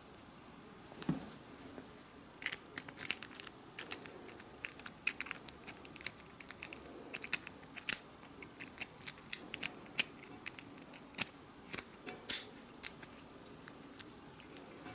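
A lock being picked: irregular small metallic clicks and scrapes, several a second, after a single soft knock about a second in.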